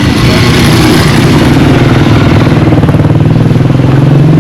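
Motor vehicle engine running close by amid congested street traffic, growing louder and slightly higher in pitch over the last couple of seconds.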